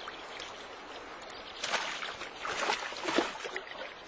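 Water running steadily, with a stretch of irregular splashing starting about a second and a half in.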